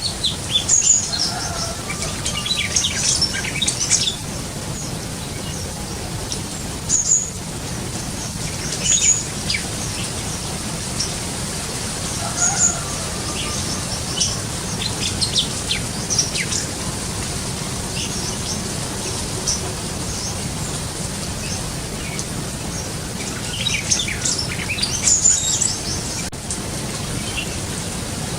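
Green leafbird (cucak ijo) calling: short, sharp, high chirps and brief whistled notes in scattered clusters, busiest in the first few seconds and again near the end. A steady hiss runs underneath.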